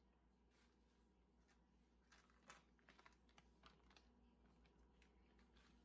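Near silence: room tone with a low hum and a few faint, scattered clicks and taps.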